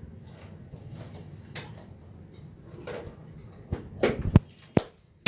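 Scattered knocks and clicks of plastic and metal parts being handled on an opened CritiCool unit, with a cluster of louder thumps about four seconds in.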